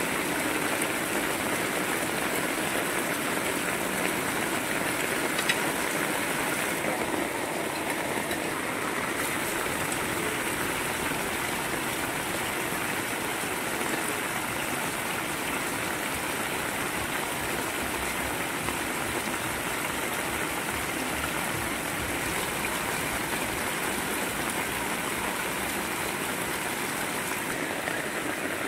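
Heavy rain falling steadily, with runoff pouring in streams off the edge of a corrugated sheet roof.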